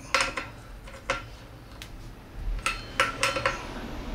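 Sharp metallic clicks and clinks from a hand ratchet and socket working the rear sprocket's nuts as they are nipped up by hand before torquing. They come in short clusters: at the start, about a second in, and a longer run in the second half.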